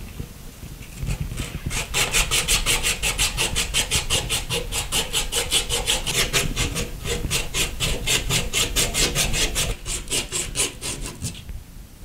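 Emery cloth (aluminium-oxide abrasive strip) rubbed quickly back and forth around a copper pipe stub, a fast, even rasping of several strokes a second, scouring green corrosion off the pipe end. It starts about two seconds in and stops about a second before the end.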